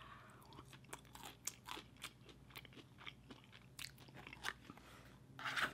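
Close-miked chewing of a mouthful of food: faint, scattered crunches and wet mouth clicks.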